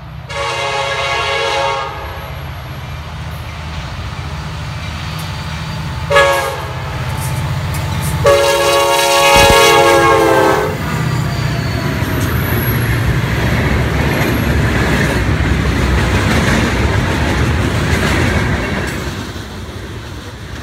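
Freight train led by EMD SD70M and SD40-2 diesel locomotives sounding its air horn in three blasts: a long one, a short one, then a longer one. The locomotive engines then rumble past close by, and the loaded aggregate hopper cars roll past with wheels clattering on the rails.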